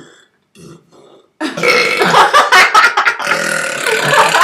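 A long, loud human burp that starts suddenly about a second and a half in and lasts about three seconds.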